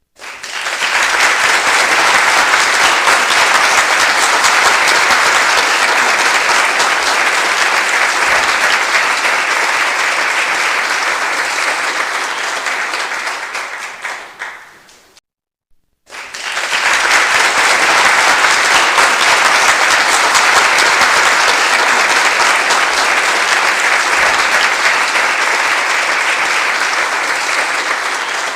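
Audience applause, many hands clapping densely. It starts at once, fades away about fourteen seconds in, and after a moment of silence a second round of applause starts and carries on.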